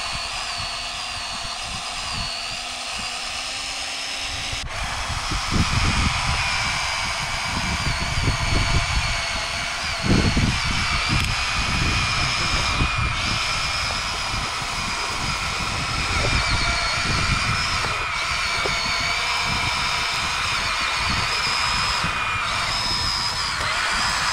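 Small electric motors of radio-controlled construction models whining steadily, the pitch wavering slightly as the load changes. A sharp click comes a little under five seconds in, and irregular low rumbling runs from about four seconds on.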